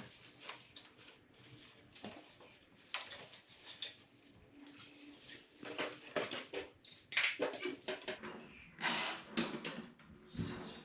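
Irregular clicks, knocks and rustles of hands working loose plastic trim pieces and fasteners on a motorcycle.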